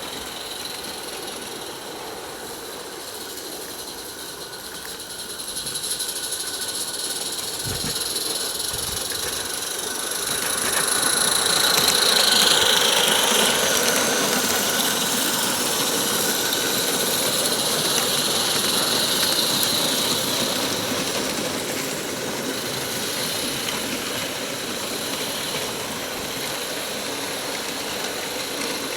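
Two 16 mm scale live steam garden-railway locomotives running together, a steady hiss of steam and exhaust that grows louder about six seconds in, is loudest around twelve seconds, then eases a little.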